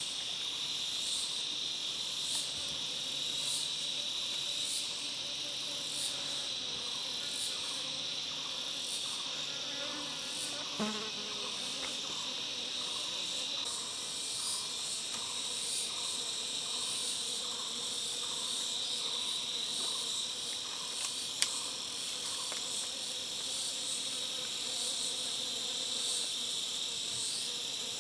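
Chorus of insects (crickets or cicadas) buzzing steadily and high-pitched, with higher chirps pulsing about twice a second and a single sharp click about three-quarters of the way through.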